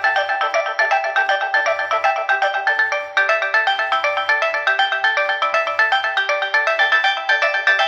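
Nokia 6021 mobile phone playing a polyphonic ringtone: a fast melody of short, evenly spaced electronic notes over a stepping bass line, with a low beat recurring underneath.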